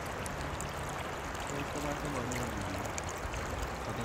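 Clear, shallow river water flowing over a stony bed: a steady babbling rush of moving water.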